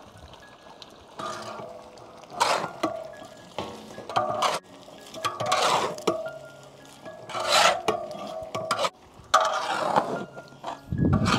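A metal spatula scraping and stirring spices frying in oil in a large cooking pan, in irregular strokes about a second or two apart. Soft background music runs underneath.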